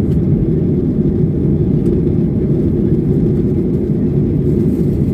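Steady low rumble of an airliner's engines running, unchanging throughout.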